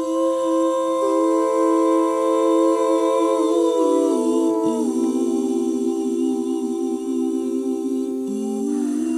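Music intro: a slow, sustained hummed vocal chord with no beat, in a slowed-down, reverb-heavy edit. The chord shifts down in pitch about four seconds in and again near the end.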